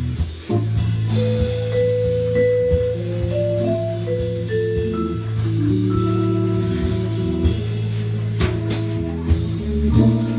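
Live jazz: a vibraphone struck with two mallets plays single ringing melody notes that step up and down. Underneath are a drum kit's cymbal and drum strokes and a sustained low bass line.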